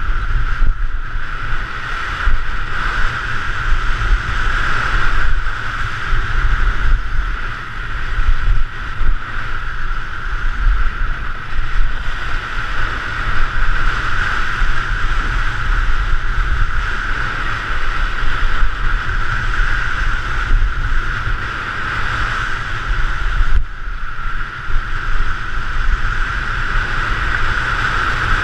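Wind buffeting a skier-carried camera's microphone during a fast downhill ski run, a loud steady rush with heavy low rumble, over the continuous hiss of skis sliding on hard, thin snow.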